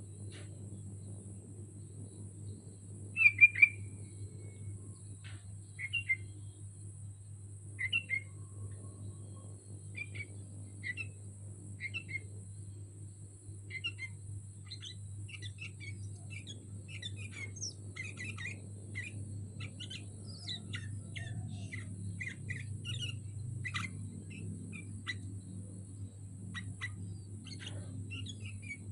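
Sooty-headed bulbul (kutilang) calling: single short chirps about every two seconds, the loudest a few seconds in, turning into a quick busy run of chirps from about halfway. A steady low hum runs underneath.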